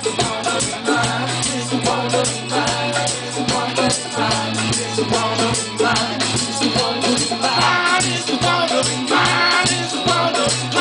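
Live band music: drums with a quick, even shaker-like tick, a steady bass line and guitar, with some singing, strongest near the end.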